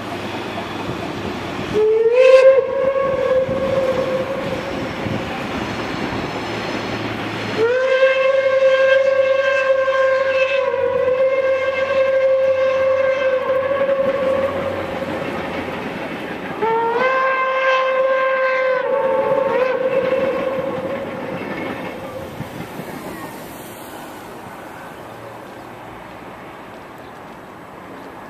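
Steam locomotive's whistle blowing three long blasts, each opening with a short upward slide in pitch. The whistle then stops and the sound dies down to a low background.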